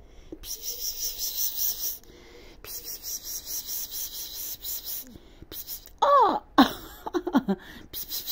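Hissy rustling of fur and fabric as kittens are stroked, then a short, falling cat meow about six seconds in and a few lower calls just after.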